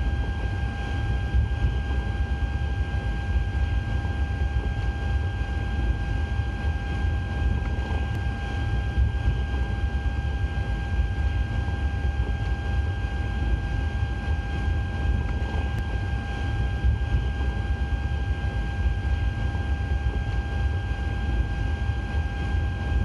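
Flight-deck noise of a Boeing 777-300ER taxiing: a steady low rumble with a constant high hum.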